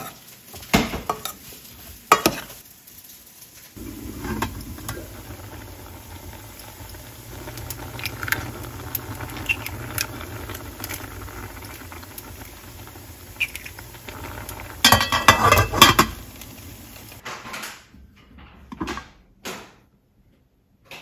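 Cooking sounds from braised tofu in a pan: a steady sizzling simmer with utensils stirring and knocking against the pan, and a loud burst of clattering about three-quarters of the way through. Near the end the sizzle stops, leaving only a few clicks.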